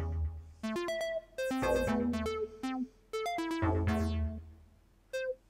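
Synthstrom Deluge groovebox playing a looping synth pattern of short pitched notes over a deep bass note, with a flanger effect sweeping through the sound.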